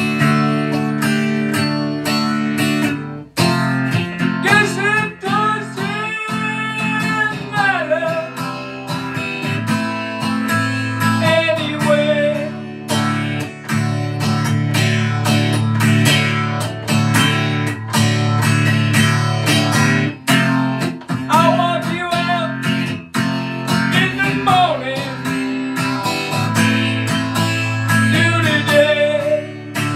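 Taylor steel-string acoustic guitar strummed in steady chords, with a man's voice singing over it in several phrases.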